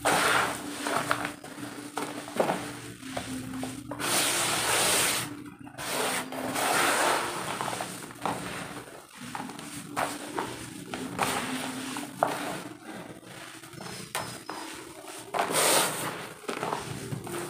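Handfuls of dry roasted dirt crumbled by hand and let fall back into a plastic tub: soft hissing pours that come in repeated waves, with small clicks from clumps breaking and landing.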